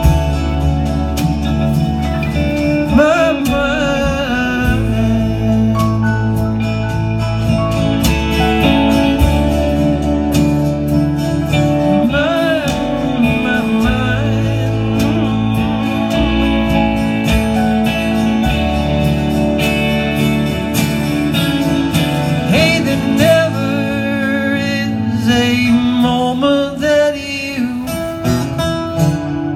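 Live band playing a country-folk song, with guitars, keyboard, bass and drums.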